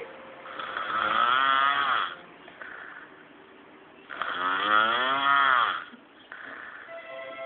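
A drunk man snoring heavily: two long, loud, rasping snores, each about a second and a half, a few seconds apart.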